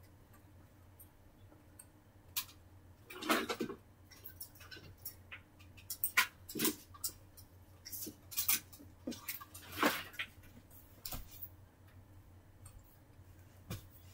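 Scattered short rustles, scrapes and light knocks at irregular intervals, the longest about three and a half seconds in and near ten seconds, over a faint steady hum.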